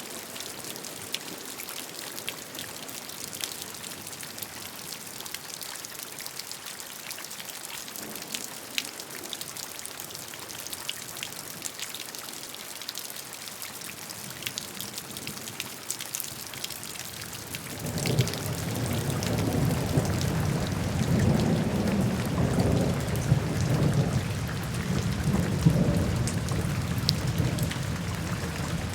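Steady rain with many separate drops ticking. About two-thirds of the way in, a deep rolling rumble of thunder sets in and continues under the rain, making it noticeably louder.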